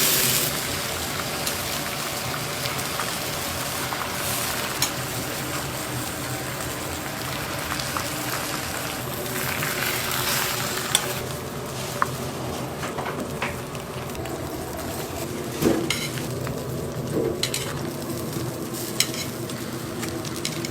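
Hot dogs frying in hot oil with a steady sizzle, and a few sharp clicks and knocks now and then.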